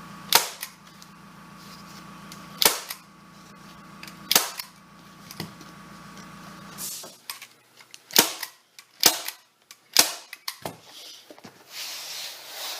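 Staple gun firing staples through vinyl upholstery into a plywood seat board: about six loud, sharp shots at uneven intervals, with a few fainter clicks between them.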